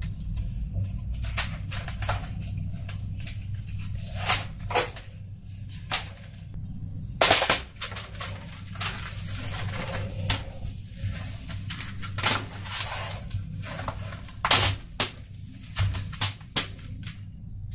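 Plastic housing of a Razer Cyclosa membrane keyboard being pried apart by hand: a string of sharp plastic clicks and snaps as the case clips let go, with handling knocks and rattles. The two loudest snaps are about seven seconds apart. A steady low hum sits underneath.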